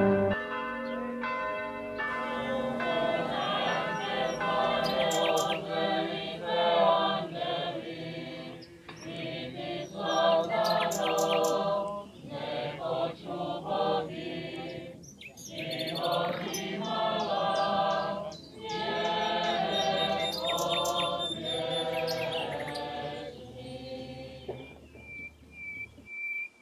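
Voices singing a song in phrases, dying away near the end.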